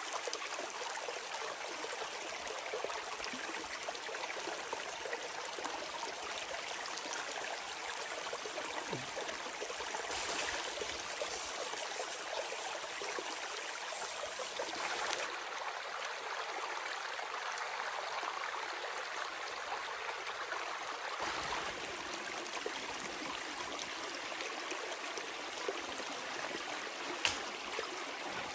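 Steady rushing of running water, like a stream, with one faint click near the end.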